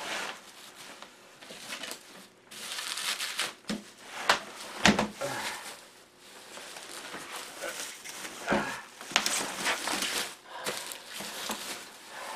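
Bubble wrap and plastic sheeting crinkling and rustling as it is pulled and unwound by hand, in irregular spurts with a few sharp snaps.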